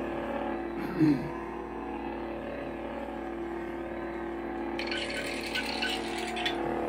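Proffieboard lightsaber's sound font humming steadily from its speaker, with a short falling sweep about a second in and a higher crackling layer joining for a second or so about five seconds in.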